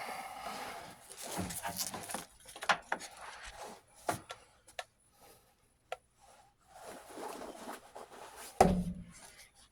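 Irregular handling noise: scattered knocks, clicks and rustling, with one heavy thump near the end.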